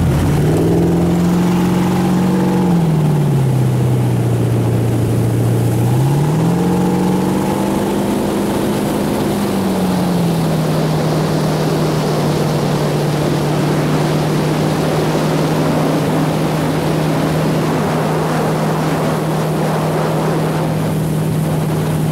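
Tow boat's engine pulling a skier up out of the water: its pitch drops about three seconds in, climbs again about six seconds in, then settles into a steady drone at towing speed from about ten seconds on. Constant hiss of water spray and wind runs underneath.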